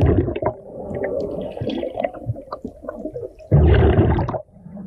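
Underwater sound of a hand digging through silt and gravel on a riverbed: scattered clicks and crunches over a churning, watery rumble. About three and a half seconds in comes a loud gurgling rush of water and bubbles, lasting about a second, that stops abruptly.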